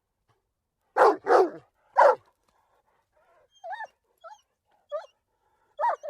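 A dog barking three times in quick succession, then a run of softer, shorter whining yelps.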